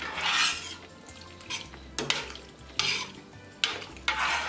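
Long metal spoon stirring hominy and red chile broth in a large stainless steel stockpot: the liquid swishes and sloshes in surges, with a few sharp clinks of the spoon against the side of the pot.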